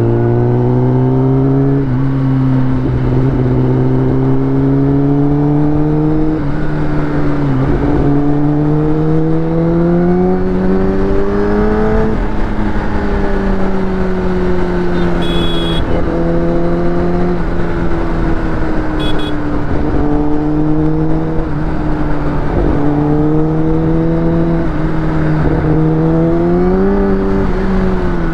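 Kawasaki Ninja ZX-10R's inline-four engine under way, its note climbing and dropping back several times as the bike accelerates and shifts up.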